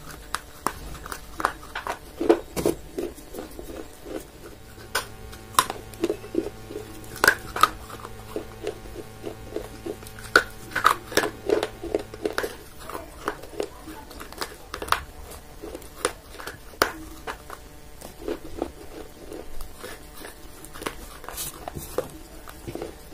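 Pieces of clay pottery being bitten and chewed close to the microphone: sharp crunching cracks at an uneven pace, with softer grinding between them.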